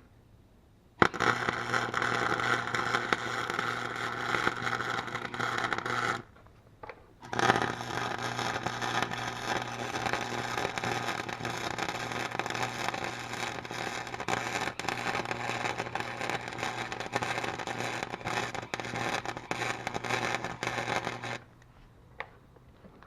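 Electric arc welder laying beads on the snow thrower's broken steel auger blade: two runs of steady crackling with a low hum under them. The first lasts about five seconds, then a second's pause, then a longer run of about fourteen seconds.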